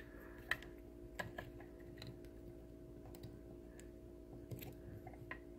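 Scattered faint small clicks of a plastic 8-pin EEPROM test clip being fitted and pressed onto a chip's legs on a circuit board, over a steady electrical hum.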